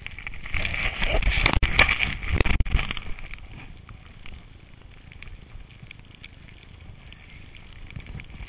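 Snow hissing and scraping under a rider turning through fresh powder, with wind rushing over the camera microphone. Loudest in a rough burst with crackles from about half a second to three seconds in, then a quieter steady rustle.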